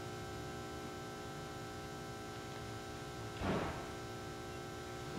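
Steady electrical hum of a microphone and sound system in a pause between words, made of several steady tones over low room rumble. A brief soft noise comes about three and a half seconds in.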